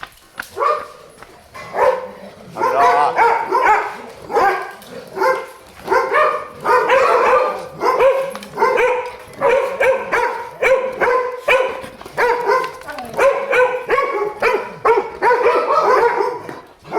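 Pit bull barking over and over in high, yelping barks, about two a second, starting about a second in.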